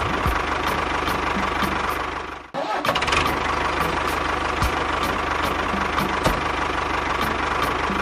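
An engine running steadily with an even, fast rhythm. It dips out briefly about two and a half seconds in, then runs on as before.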